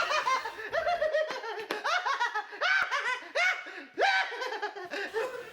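Hearty laughter: a string of ha-ha syllables, each rising and falling in pitch, going on throughout.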